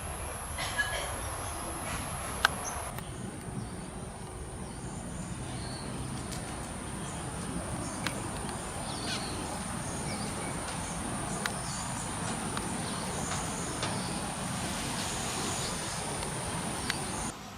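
Outdoor garden ambience: a steady background rush with short bird chirps scattered throughout, a few sharp clicks, and a thin, very high steady tone that drops slightly in pitch about three seconds in.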